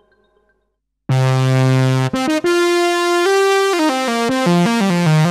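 Modal Electronics Cobalt 8X virtual-analog synthesizer playing a factory preset, direct with no added effects. Faint repeating echoes die away, then about a second in a loud, bright sustained chord comes in, shifts a couple of times, and turns into a run of notes stepping downward in pitch near the end.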